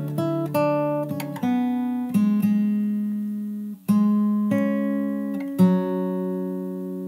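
Steel-string acoustic guitar with a capo, fingerpicked: single notes and chords of a verse plucked one after another and left to ring. There is a short break just before four seconds in.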